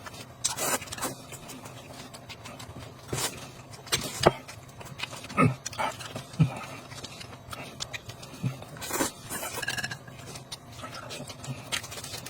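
Close-up eating sounds: irregular mouth noises, smacking and slurping, with scattered sharp clicks and short low hums.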